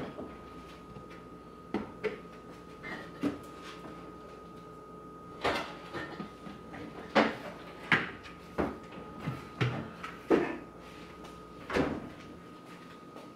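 Black lid of a white plastic fermenting bucket being pressed and worked by hand: a few light knocks, then a run of about eight sharp plastic snaps and knocks over several seconds.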